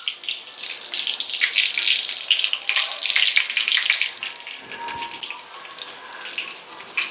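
Floured chicken breast fillets frying in hot lard, a crackling sizzle that is loudest over the first few seconds and dies down about halfway through.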